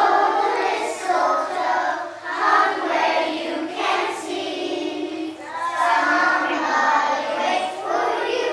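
A group of kindergarten children singing together in chorus, one sung phrase after another.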